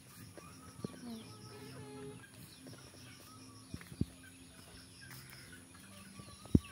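Faint bird calls and chirps, broken by a few sharp knocks, the loudest near the end.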